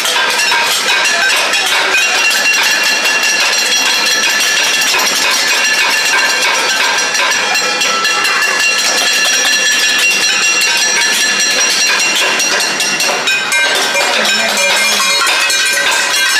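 Metal cooking pots and lids beaten over and over by several people at once in a cacerolazo: a dense, unbroken clatter of strikes with ringing metal tones.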